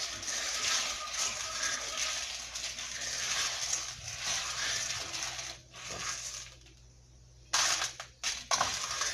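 Small red peanuts being stirred with a wooden spoon in a dry metal pot as they roast: a steady rattling scrape of nuts against the pot. The stirring stops about two-thirds of the way through, and a brief louder rattle comes near the end.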